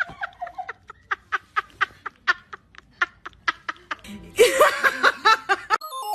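Snickering laughter, a quick steady run of short 'heh-heh' pulses. About four seconds in there is a louder, harsher outburst, and near the end a bleepy electronic music tune starts.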